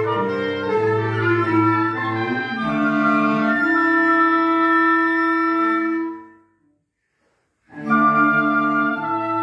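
Chamber quartet of flute, oboe, bass clarinet and cello playing slow, held chords of contemporary classical music. The chord dies away about six seconds in, there is a second of silence, and then all the instruments come back in together loudly.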